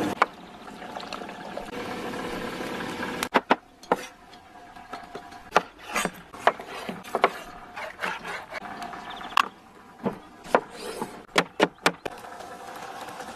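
A kitchen knife cutting through food onto a board: a string of sharp, irregular knocks, about fifteen of them, starting about three seconds in.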